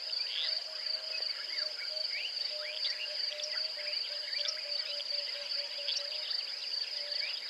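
Natural chorus: an insect keeps up a steady, high-pitched pulsing trill, with a lower, fainter pulsing tone beneath it, and many short rising chirps from small calling animals are scattered through it.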